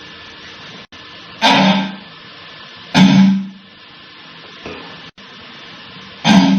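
A person belching loudly three times, each a rough, low burp about half a second long, with a fainter one between the second and third. The burps are brought on by drinking Sprite with banana.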